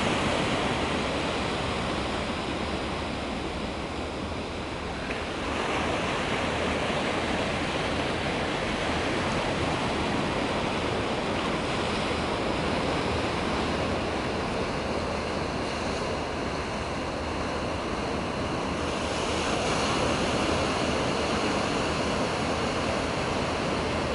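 Ocean surf: a continuous rush of breaking waves and whitewater, swelling slightly a couple of times.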